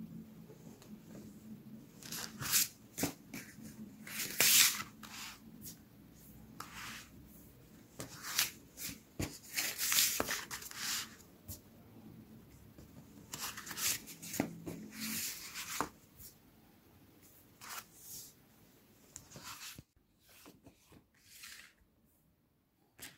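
Paper rustling as books and booklets are handled and their pages turned, in irregular crisp bursts that grow sparse and faint near the end.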